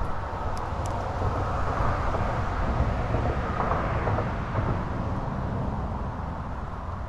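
A car or truck passing on the road, its tyre and engine noise swelling and then fading away over a few seconds.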